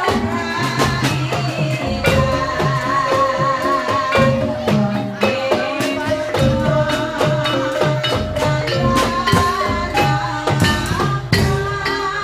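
Javanese incling folk ensemble playing live: drums beat a dense, steady rhythm under a wavering, sustained melody line.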